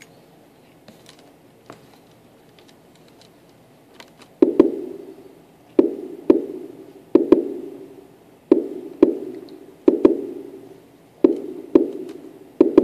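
Yamaha Tenori-on playing a looping sequence of short, low notes that each die away quickly, coming in about four seconds in after a few faint clicks of its buttons being pressed.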